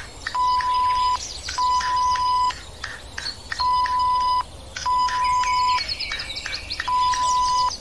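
Five steady one-tone bleeps at about 1 kHz, each just under a second long with short gaps between them, the classic censor bleep laid over the cartoon's soundtrack. Background bird chirps flutter in over the later bleeps.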